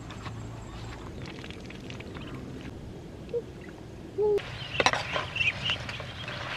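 Steady low outdoor rumble for most of the clip. Near the end comes a clatter, then short high peeping calls from ducklings.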